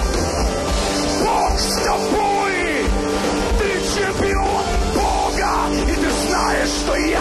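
Church worship music with steady held chords, and a man's voice yelling prayer into a microphone over it.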